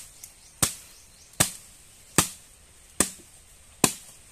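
Bolo knife chopping into a nipa palm fruit to split it open: five sharp, evenly spaced strokes, about one every 0.8 seconds.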